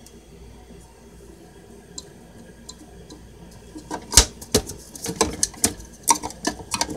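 A few faint ticks, then from about four seconds in a run of sharp, irregular clicks and knocks, several a second, as of small hard objects being handled.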